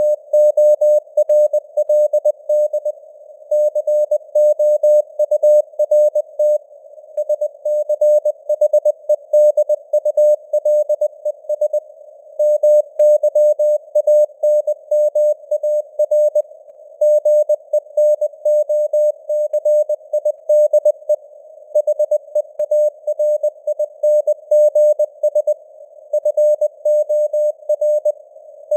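Morse code at 20 words per minute: a single mid-pitched tone keyed on and off in quick dots and dashes with short gaps between letters and words, over a faint hiss of simulated radio band noise.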